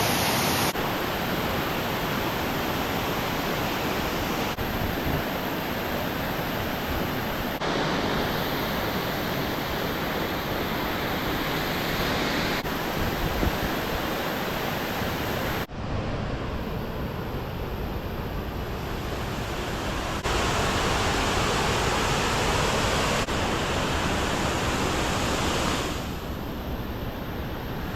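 Rushing water of a waterfall, a steady full hiss, in a string of short clips that change abruptly every few seconds.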